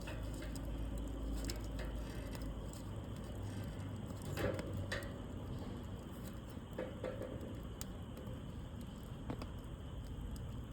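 Wood fire crackling with scattered sharp pops over a low steady rumble, a louder cluster of pops about four to five seconds in.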